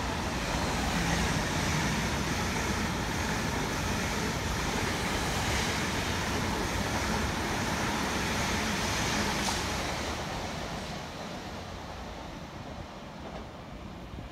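Steady rushing noise of electric trains at a station platform, fading away about ten seconds in.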